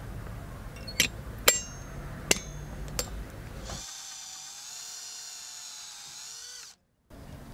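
Four sharp clicks as a center punch marks a thin metal lure blank. About four seconds in, a power drill with a twist bit starts drilling into the thin metal with a high whine and cuts off suddenly near the end.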